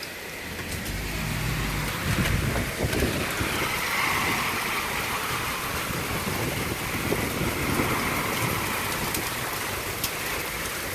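Steady rain from a spring storm, with a low rumble about one to three seconds in and a few sharp ticks.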